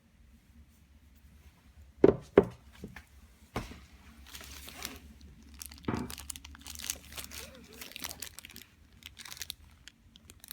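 Crinkling of packaging as a car part is handled, with a few sharp knocks about two seconds in and again near four and six seconds.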